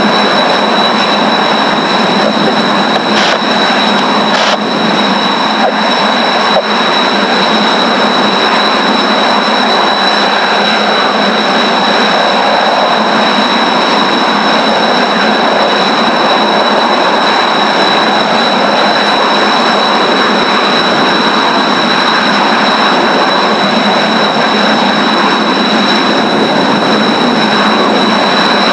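Kawasaki T-4 jet trainers' turbofan engines running steadily on the ground, a constant roar with a high, unwavering whine.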